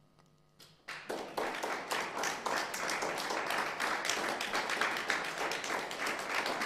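The last note of an electric guitar dies away, and about a second in a small audience breaks into applause that carries on steadily.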